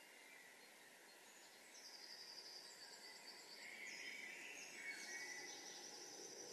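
Faint dawn birdsong: high trills from about two seconds in and again near the end, with lower warbling notes between them, over a steady low background rumble.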